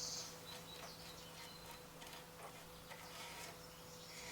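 Faint scraping of a glue spreader working wood glue along a wooden rabbet: a few soft, scattered strokes over a low, steady hum.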